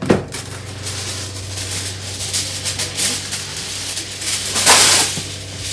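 A baking pan being lined: a sheet of liner crinkled and pressed into the pan, a rattly rustling with a sharp click at the start and a louder burst of rustling about four and a half seconds in.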